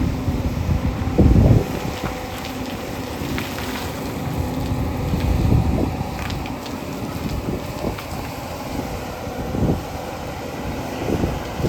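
JCB 245 HD LR long-reach excavator's diesel engine running while its bucket digs rock, with several heavy knocks and scrapes of steel on stone, the loudest about a second in.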